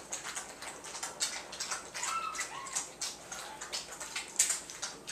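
Five-week-old silver puppies lapping goat's milk from a shared bowl: a rapid, irregular wet clicking and slurping. A brief high puppy whine about two seconds in.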